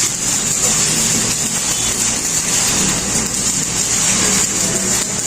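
Steady machine noise with a constant high hiss over a low hum, unbroken throughout.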